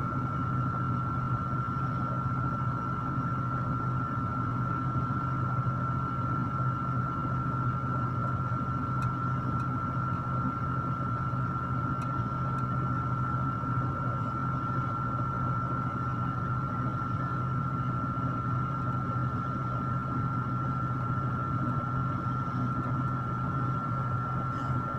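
Electric stand fan running: a steady low hum with a thin, steady high whine above it.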